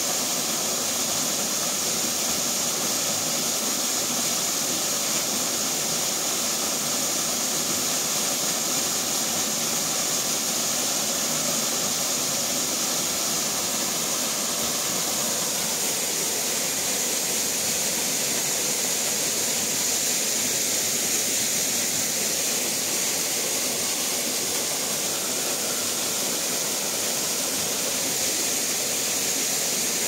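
Steady rushing of a waterfall pouring into a rock pool, an even noise with no breaks.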